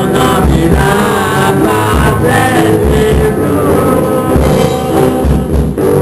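A band rehearsing a rock song live: guitars and drum kit playing steadily, with a voice singing the melody over the first half.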